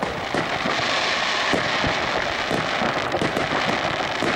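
Aerial fireworks going off in a continuous barrage: dense crackling with frequent sharp bangs scattered through it.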